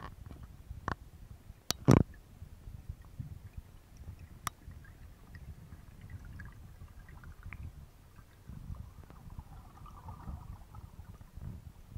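Underwater ambience heard through a camera in its housing: a steady low rumble of moving water with a few sharp clicks and knocks, the loudest about two seconds in.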